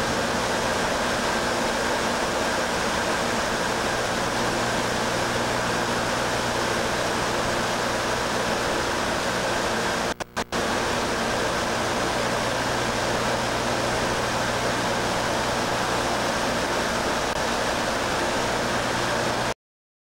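Steady rushing air with a constant low hum from a fan blowing air through a duct. It drops out twice for a split second about halfway through and cuts off just before the end.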